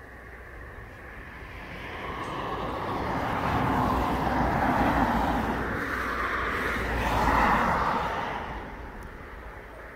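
Cars driving past on the road, tyre and engine noise swelling and fading in two passes, the second slightly louder, then dying away near the end.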